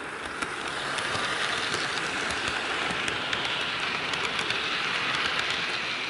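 HO scale Santa Fe diesel model train running past on sectional track: a steady motor and wheel whir with scattered clicks of the wheels on the rail. It grows louder about a second in as the locomotive passes close, then eases near the end as the caboose moves away.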